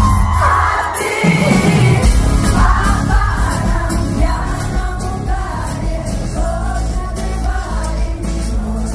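Live pop music played loud through a concert sound system: sung vocals over a band, with a heavy bass that thickens about two seconds in.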